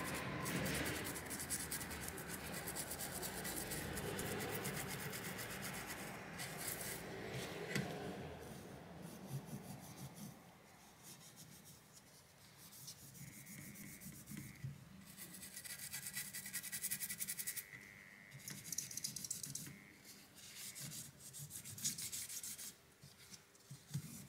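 Toothbrush bristles scrubbing old thermal paste off a graphics card's GPU die and circuit board: a fast, steady scratching for about the first ten seconds, then fainter scrubbing in short, broken-up spells.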